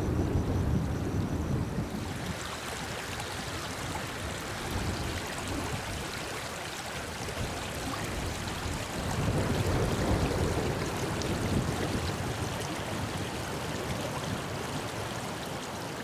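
Outdoor ambience: a steady rushing hiss with wind on the microphone, the low rumbling gusts strongest at the start and again about nine to twelve seconds in.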